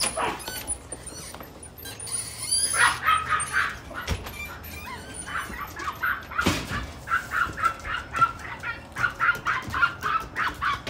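Animal calls: a few falling calls in the first few seconds, then a quick run of short repeated calls, several a second, from about five seconds in.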